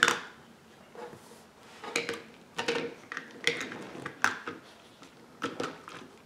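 Small plastic toy parts being handled, giving a series of light clicks and clatters, roughly one every half second to a second.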